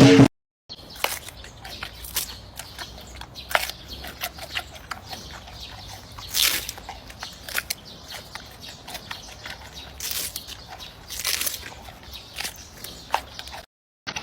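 Giant panda chewing bamboo: irregular crunches and cracks, with a few louder snaps.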